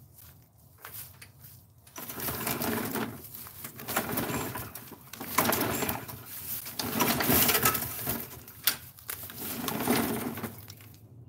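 Walk-behind gas lawn mower being pull-started: about five pulls on the recoil starter cord, each a burst of noise lasting about a second as the engine turns over.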